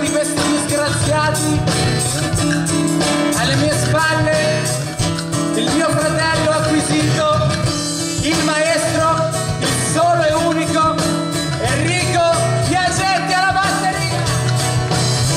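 Live rock band playing an instrumental passage: strummed acoustic guitar and a drum kit keeping a steady beat, with a gliding melody line on top.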